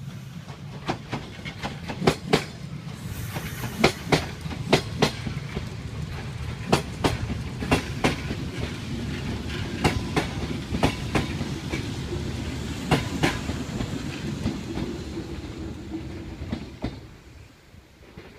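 Kintetsu electric commuter train passing close by: a steady low rumble with the wheels clacking in pairs over the rail joints, dying away near the end.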